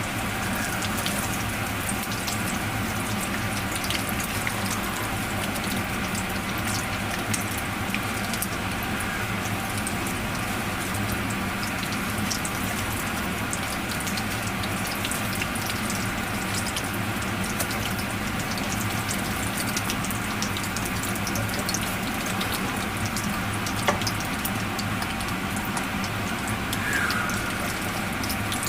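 Menchi katsu frying in hot oil in a frying pan: a steady sizzle with many small crackles.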